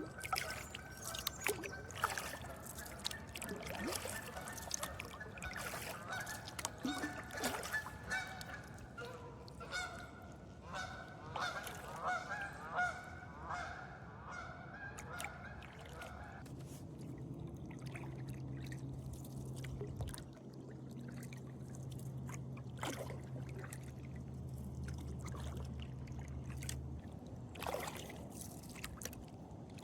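Geese honking, many calls in quick succession through the first half, over light water splashing. Later a low steady hum runs for about ten seconds.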